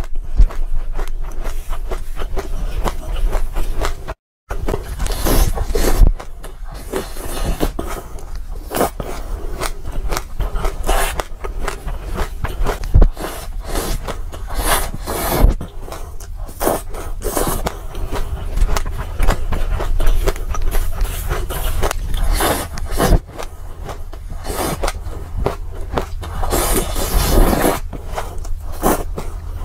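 Close-miked crunching and chewing of mouthfuls of mixed dry seeds, with a plastic spoon scraping and scooping through seeds in a glass bowl: a dense, continuous crackle. The sound cuts out completely for a moment about four seconds in.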